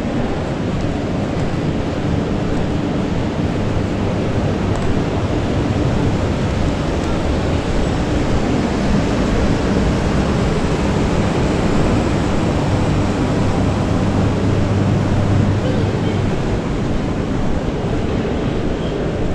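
Steady rushing background noise of a large indoor shopping centre, with a low steady hum underneath.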